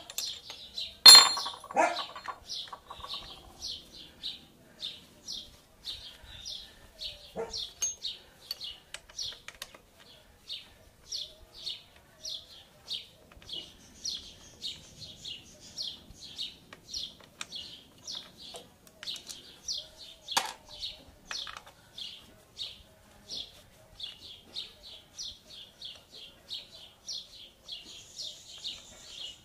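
A bird chirping over and over, short high calls about two a second. About a second in, a loud metal clink with a brief ring comes from tools on the brake caliper, and there is a lighter knock about twenty seconds in.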